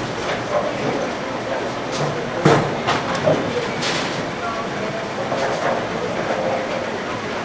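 Bowling alley din: a steady rolling rumble of balls on the lanes, broken by several sharp clatters between about two and four seconds in, with faint voices.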